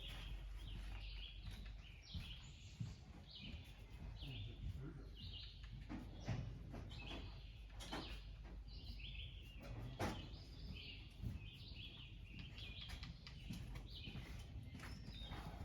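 Faint bird chirps, short calls repeating over and over. A few sharp knocks stand out about six, eight and ten seconds in.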